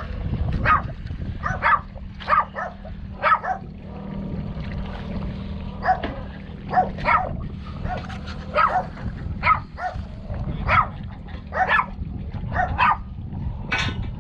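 Dog barking over and over in short single or paired barks, pausing for a couple of seconds near the middle, over a steady low engine hum.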